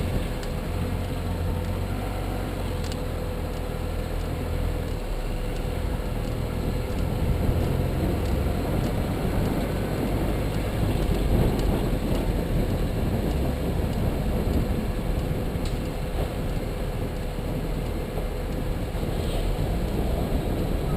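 A car being driven: steady road and engine noise with a faint steady hum.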